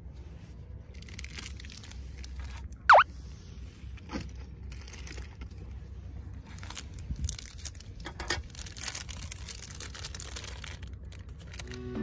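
Handling of camp cookware and a plastic bag of pancake mix: scattered light clicks and crinkling rustles, over a low wind rumble on the microphone. About three seconds in, one short, loud squeak that falls sharply in pitch.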